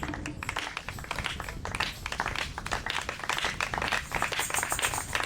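Noise of a gathered congregation: a dense, continuous patter of many short sharp sounds over a low rumble.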